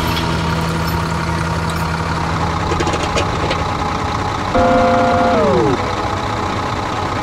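Tractor engine running steadily with a round baler in tow. About four and a half seconds in, a louder held tone starts and then slides down in pitch as the baler's tailgate opens to drop a round bale.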